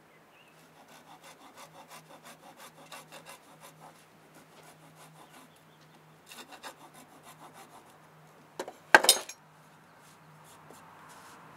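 Small metal-framed hand saw cutting a piece of wood held in a bench vise, at about four quick strokes a second, pausing and then resuming briefly. About nine seconds in comes a brief loud clatter, the loudest sound of all.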